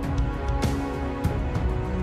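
Background music: held instrumental notes over a steady percussive beat.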